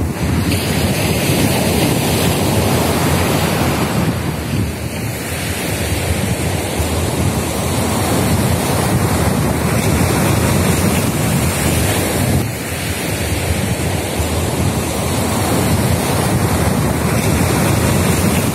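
Ocean surf breaking on a sandy beach: a steady, loud rush of waves that eases briefly about four seconds in and again about twelve seconds in, with wind buffeting the microphone.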